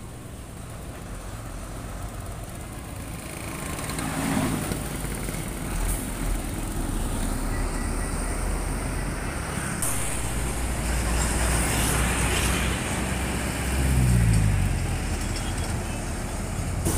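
Trucks passing close by, engine rumble and tyre noise building up as they go past. Late on, one engine note falls in pitch as a truck goes by.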